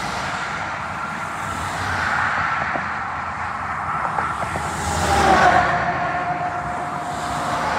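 Highway traffic passing close by: tyre and engine noise swelling and fading as vehicles go past, loudest a little past halfway as a car passes near.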